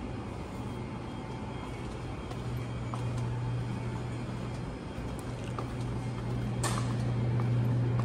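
Supermarket ambience: a steady low mechanical hum that grows louder about two seconds in, with a few faint clicks and one sharper click about two-thirds of the way through.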